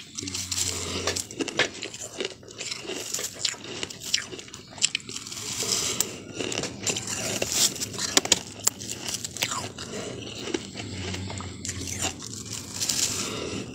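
A fluffy, snow-like block of ice being bitten and chewed close to the microphone, giving many quick crisp crunches one after another.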